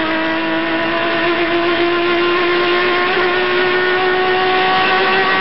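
Turismo Carretera race car's engine heard from inside the car, held at high revs under full throttle on a straight, its pitch climbing slowly and steadily.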